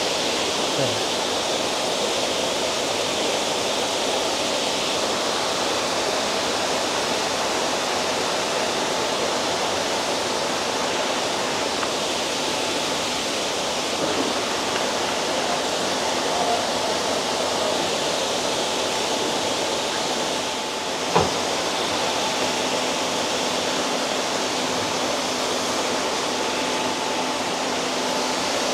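Steady rush of water running in koi ponds, with a faint low hum under it and a single knock about three quarters of the way through.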